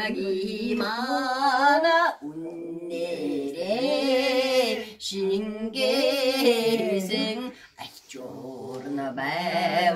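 An elderly woman singing a song solo and unaccompanied, in long phrases of held notes with a heavy waver, separated by short breaths.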